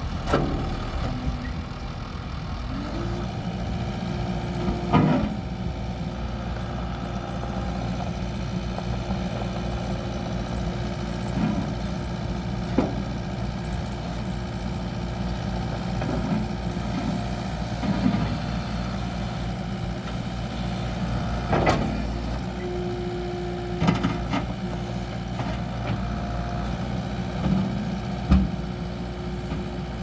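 Case SR175 skid steer loader running steadily, with a hydraulic whine coming in twice as the loader arms and bucket are worked. Several sharp metallic clunks from the bucket and quick coupler.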